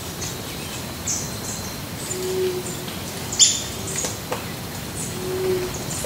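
Several wild birds calling in the tree canopy: a low, drawn-out note repeated twice, about three seconds apart, under scattered short, high chirps, with one loud, sharp high call about halfway through.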